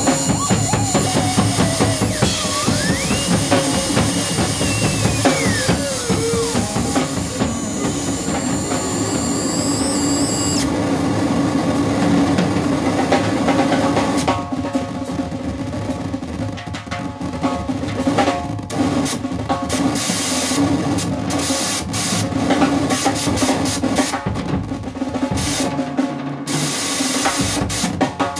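Live noise improvisation: a drum kit played fast under a dense wall of electronic noise. Sliding, whistling tones rise and fall through the first few seconds, and from about halfway the noise turns choppy and stuttering.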